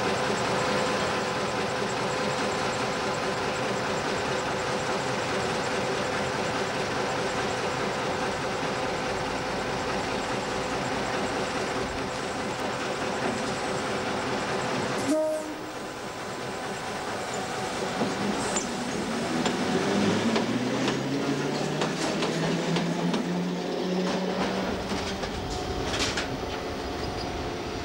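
Old electric locomotive at a station: a steady hum with several held tones from its running equipment. After a cut, a motor whine rises in pitch over a few seconds, with scattered clicks and knocks from the rails.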